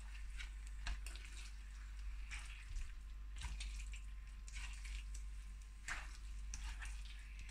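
Meat sizzling in a curry mixture in a frying pan, with a utensil scraping and tapping against the pan as the pieces are stirred and turned, in irregular short strokes.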